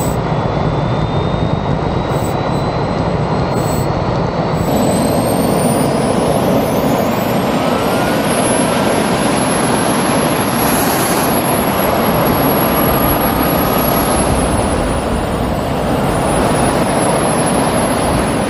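Three small jet engines on a go-kart running hard: a loud, steady roar with several high turbine whines. About four and a half seconds in the sound steps up and the whines climb steeply, then drift up and down.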